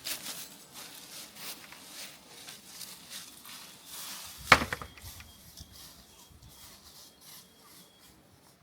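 Scattered light clicks and knocks, with one sharp knock about four and a half seconds in.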